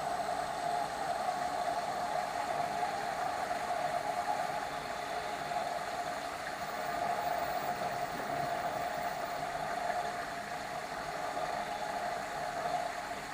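LG direct-drive washing machine running its drain cycle: the drain pump hums steadily as water is pumped out, with an even hiss.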